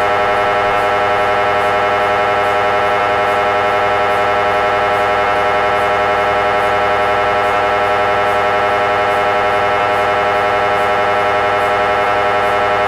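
MRI scanner's gradient coils buzzing during a scan sequence: a loud, steady buzz of many stacked tones with a rapid, even pulsing.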